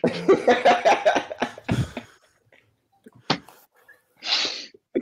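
Several men laughing over video-call audio, loud and choppy for about two seconds, followed by a single sharp click and a short breathy exhale near the end.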